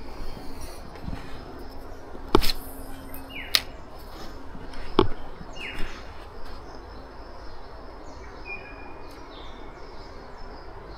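Outdoor bush ambience with a bird giving short falling whistles a few times. Three sharp knocks or slaps come between about two and five seconds in, the loudest of them first.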